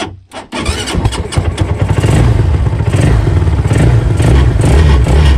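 Honda Titan 150 single-cylinder four-stroke motorcycle engine mounted in a mini boat, starting up about half a second in and then running loudly and steadily.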